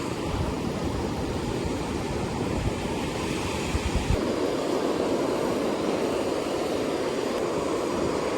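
Rough ocean surf washing in steadily, with wind buffeting the microphone in gusts; the wind rumble drops away about four seconds in, leaving the wash of the waves.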